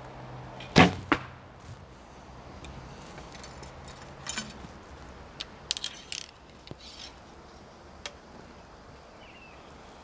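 A recurve bow shot: a sharp crack as the string is released about a second in, followed a moment later by a second knock as the arrow strikes. Light clicks and rattles follow.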